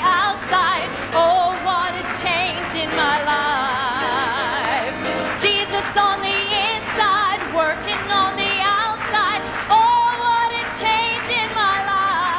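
Live church choir music with a woman's voice singing with heavy vibrato; several voices sound at once, and a long note is held about ten seconds in.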